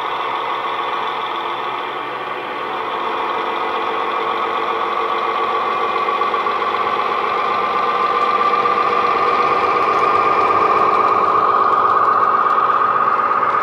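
Recorded MAN L12V diesel engine sound played through the small speaker of a model Class 41 Warship's LokSound sound decoder, as the locomotive pulls away. The engine note dips briefly about two seconds in, which the maker describes as the hydraulic transmission filling with fluid, then climbs steadily as the revs build.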